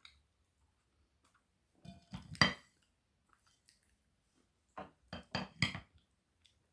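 Close-miked eating sounds: two clusters of short, crisp clicks and crunches, one about two seconds in and a longer run of several near the end, from spiced flatbread being handled, dipped and bitten.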